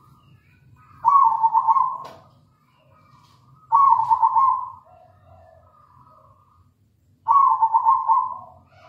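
Zebra dove (perkutut) cooing: three loud phrases roughly three seconds apart, each about a second long with a fast stuttering ripple, and softer coos in between.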